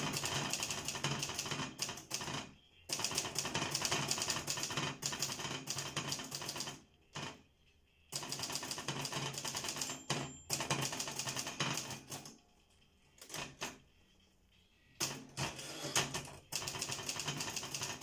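Pen scratching on paper during handwriting, in runs of quick strokes a few seconds long with short pauses between them.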